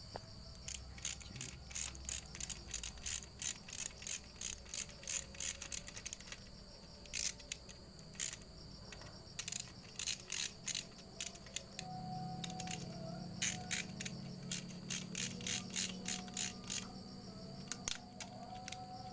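Socket ratchet wrench clicking in quick runs with short pauses as it runs down the oiled main bearing cap bolts of a Toyota Kijang engine block.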